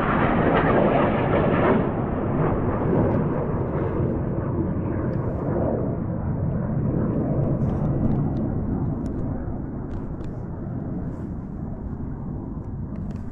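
Jet aircraft passing low: a loud rushing noise that starts suddenly, is strongest for the first couple of seconds, then slowly fades and dulls as the aircraft moves away.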